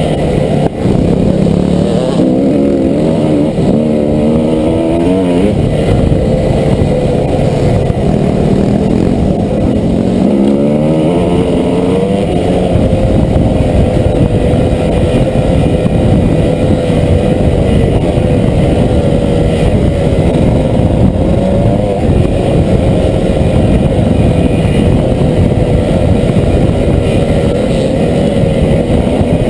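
Dirt bike engine heard through a helmet-mounted camera, revving up and down through the gears for the first twelve seconds or so, then running at a fairly steady pitch.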